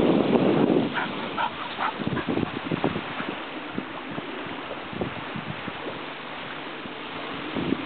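Wind buffeting the microphone for about the first second, then a few short, quick yips from two dogs at play, over a steady breeze.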